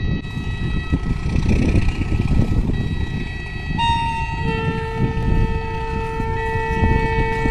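Railway warning horn at a level crossing: a long, steady sound of several held tones together, with a lower tone joining about four seconds in, over wind rumble on the microphone.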